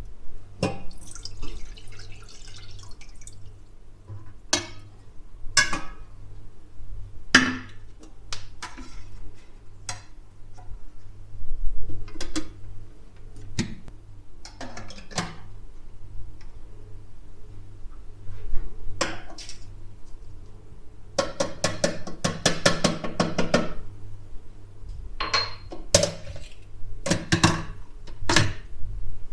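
Clicks, knocks and rattles of glass and plastic parts as a DeLonghi Clessidra drip coffee maker is set up, with a denser rattling stretch about two-thirds of the way through. Near the end come the clicks of its buttons being pressed.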